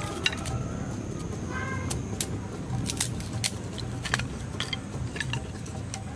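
Sticks and twigs of firewood being broken and handled: irregular sharp snaps and knocks scattered throughout.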